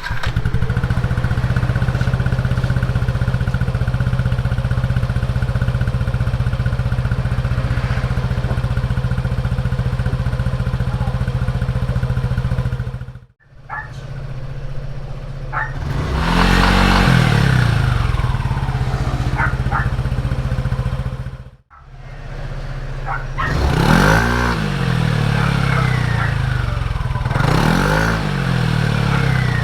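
Yamaha NMAX V1 scooter's 155 cc single-cylinder four-stroke engine through a TSMP Silent Killer aftermarket exhaust. It idles steadily for the first half, then the sound breaks off twice and the engine is revved several times, its pitch rising and falling.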